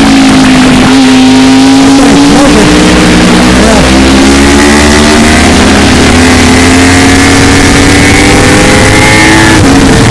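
A vehicle engine pulling hard, heard from a helmet camera. Its pitch wavers at first, then climbs steadily and drops sharply near the end, as at a gear change, under a constant rush of noise. The sound is loud, overloaded and distorted throughout.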